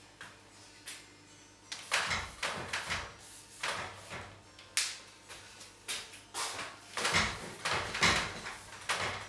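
A bristle brush dragged and dabbed across a stretched canvas, laying on oil paint in a series of short scratchy strokes, about one or two a second, starting about two seconds in.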